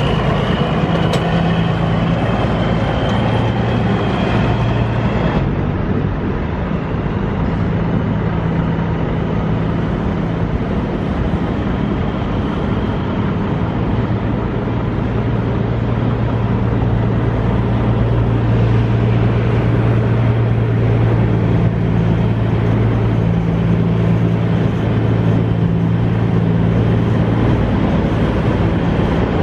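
Kenworth semi truck's diesel engine running steadily at low revs as the tractor pulls slowly with a refrigerated trailer, an even deep drone. A high steady whine sits over it and cuts off about five seconds in.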